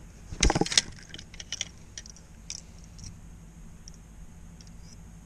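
Clicking and rattling of a spinning rod and reel being handled: a loud burst of rattles about half a second in, then scattered lighter clicks.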